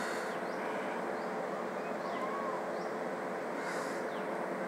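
Steady background hiss with a low hum, with a few faint short high chirps and brief soft puffs of hiss now and then.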